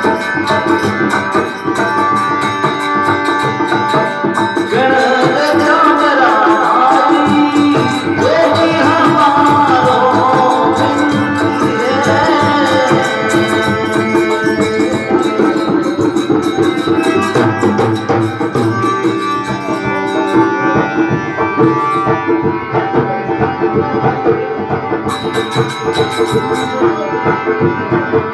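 Rajasthani devotional folk music: a hand drum keeps a steady rhythm under a sustained melodic accompaniment, with rattling percussion. A gliding melody line rises over it for several seconds near the middle.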